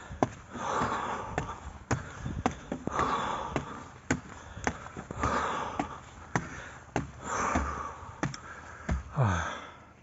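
A person breathing hard, with a loud breath about every two seconds, from an out-of-breath hiker. Short footstep ticks come between the breaths, and a voiced sigh falls in pitch near the end.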